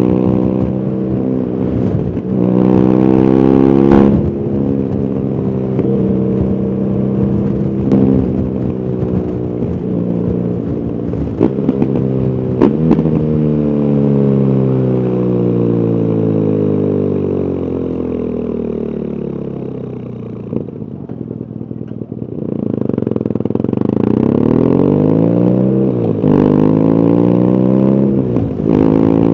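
BMW R nineT Urban GS's air/oil-cooled boxer twin on its stock exhaust, heard from the rider's position: the engine note climbs and steps down through gear changes, falls away for a long slowdown in the middle, then rises again as the bike pulls away. A few sudden sharp pops cut through, which the uploader puts down to a recording problem.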